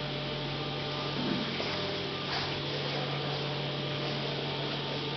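Steady low electrical hum under an even hiss.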